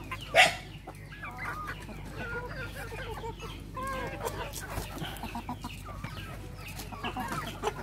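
Mixed flock of free-range chickens (game fowl and hens) clucking, many short, soft calls overlapping one another. There is one brief, sharp, louder sound about half a second in.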